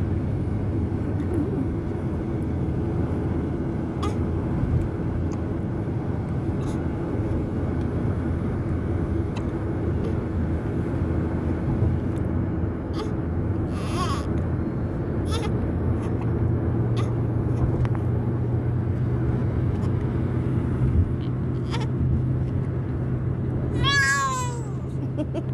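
Baby hiccuping: short, sharp hiccups every one to three seconds over a steady low hum. Near the end there is a short falling cry.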